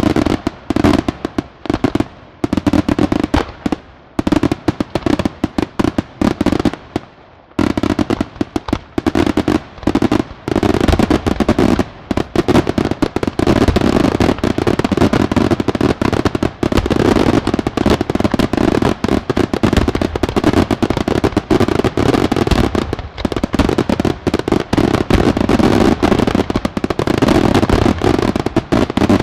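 Daytime fireworks from Senatore Fireworks going off in a rapid string of bangs, spaced at first, then from about seven seconds in a dense, continuous barrage of reports.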